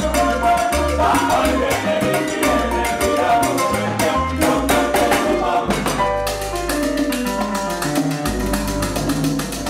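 Live salsa band playing: congas, bongos and timbales driving a dense rhythm over piano, upright bass and horns.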